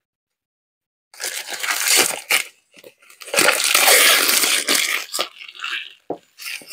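Clear plastic shrink-wrap being torn and peeled off a small cardboard card box, crackling loudly in two long stretches starting about a second in, then a few shorter crackles as the film is scrunched up in the hand.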